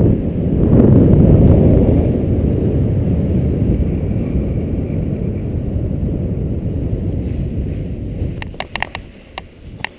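Wind buffeting the helmet camera's microphone as a paraglider glides in low to land, a steady low rush that slowly eases as the wing loses speed. Near the end the rush drops away and a quick run of light taps and rustles comes in as the pilot touches down.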